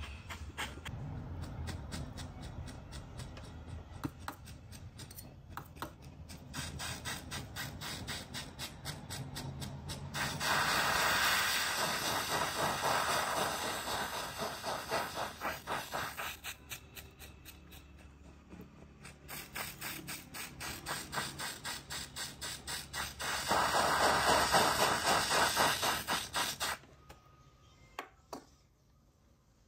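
Goldsmith's soldering torch flame hissing in two long, even stretches while a gold chain link is soldered, cutting off a few seconds before the end. Between the stretches runs a rapid rhythmic pulsing, about two pulses a second.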